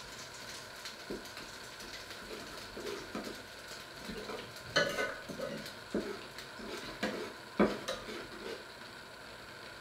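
Light, irregular clinks and knocks of metal kitchenware, such as a spoon or a pan lid, about a dozen in all, the louder ones around the middle, over a steady faint hum.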